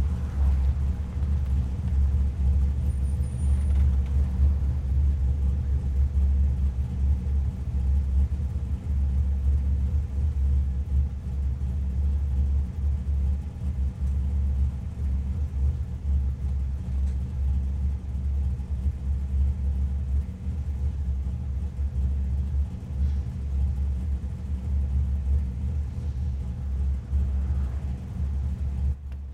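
A car engine idling with a steady, deep rumble.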